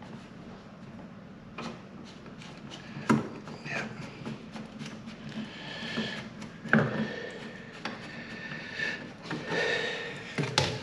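Irregular rubbing and scraping with a few sharp knocks as a toilet flush pipe is worked loose and pulled out from between the cistern and the pan.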